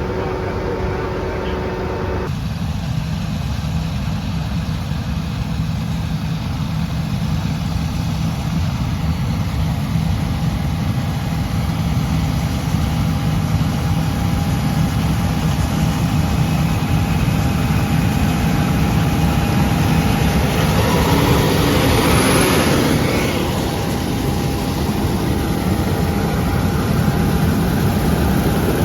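Farm tractor's diesel engine running steadily under load, a constant low drone, with a brief swell of noise about three-quarters of the way through.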